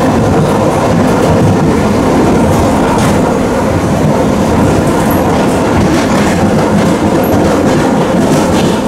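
ER2T electric train running, heard inside the coach's vestibule: a loud, steady rumble of wheels on rails with a faint steady hum and a few light clicks of rail joints.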